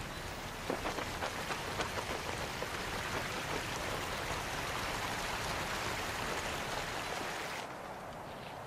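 Steady rush of running water in concrete fish-hatchery raceways, with scattered splashes in the first two seconds, cutting off suddenly near the end.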